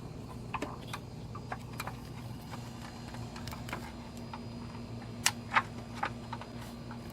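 Scattered light clicks and taps of hand tools and parts being worked on the engine during intake manifold removal, with two sharper clicks about five seconds in, over a steady low hum.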